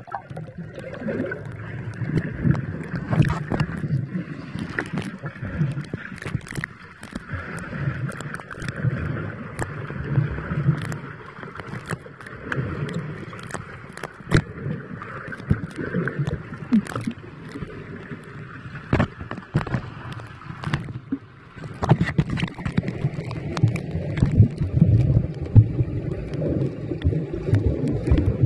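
Muffled underwater sound from a submerged camera: low churning and gurgling water with scattered sharp clicks, the sound changing about three-quarters of the way through.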